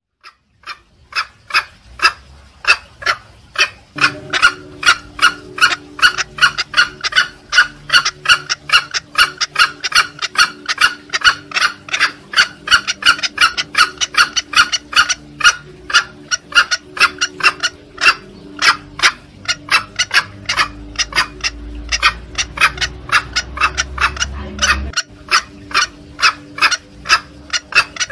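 Green junglefowl lure call: a fast, even run of short, sharp clucking notes, about two to three a second, used to draw junglefowl in when hunting.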